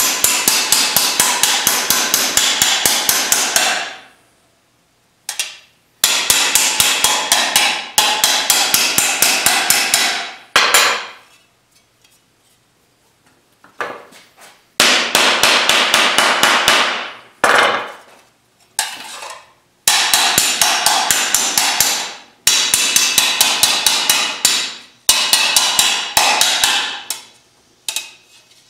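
Rapid hammer blows on a 16-gauge cold-rolled steel fender panel held over a steel dolly, roughing in the fender shape by hand. Sharp metallic strikes come in runs of a few seconds, about five blows a second, with short pauses between runs.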